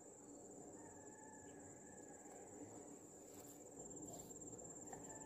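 Faint outdoor quiet with the steady high-pitched trill of insects running throughout.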